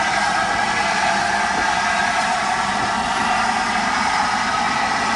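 Steam locomotive slowly pulling away from a platform, heard as a steady hiss with no distinct exhaust beats.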